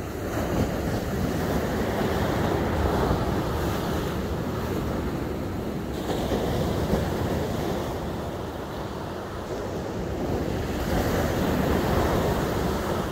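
Surf breaking on a sand beach from a rough, choppy sea, the wash swelling and fading in three waves about five seconds apart.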